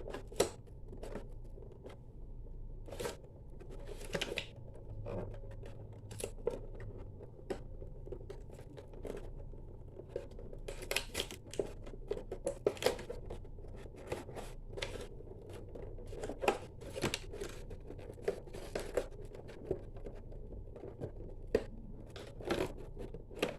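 Action-figure packaging being worked open by hand: irregular scratching, clicking and snipping sounds of plastic and cardboard, close up.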